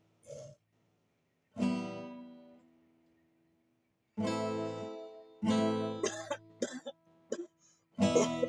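Acoustic guitar strumming single chords, each left to ring out and fade, with short sharp sounds in the gap between the third and fourth chords.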